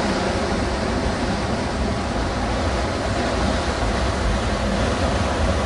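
Steady low rumble of the passenger ship M/S Koli III's engines as it moves close past the pier, with a wash of water noise over it.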